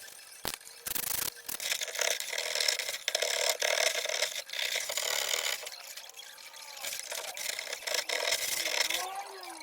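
Hand scraping and rubbing at old paint and filler on the steel sill of a Mk2 Golf GTI, in irregular strokes, with a couple of knocks about a second in and short squeals near the end.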